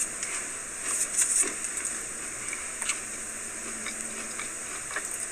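Quiet handling noise: faint rustles and a few small clicks, most of them about a second in and one near three seconds, over a steady hiss.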